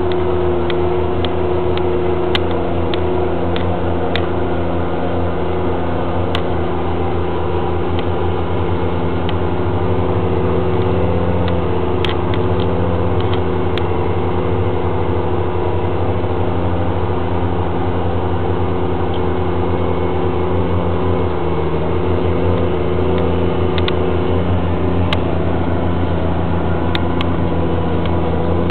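CAT Challenger MT765 tracked tractor's diesel engine running steadily under load while pulling a subsoiler, heard from inside the cab. The drone holds an even pitch, with a few faint clicks and rattles over it.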